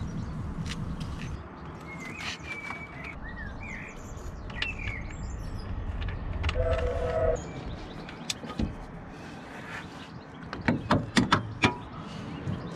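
Small birds chirping in the background while hands work at a car's gearbox filler hole, with low handling rumble; a quick run of sharp metallic clicks near the end is the loudest sound.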